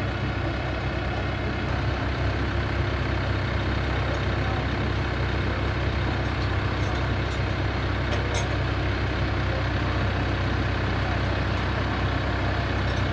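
Komatsu wheel loader's diesel engine idling steadily, with a faint metallic click about eight seconds in.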